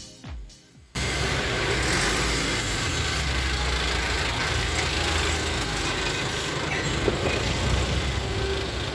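Electronic dance music with a steady beat cuts off about a second in. Street traffic takes over, with truck and car engines running close by as a steady low rumble.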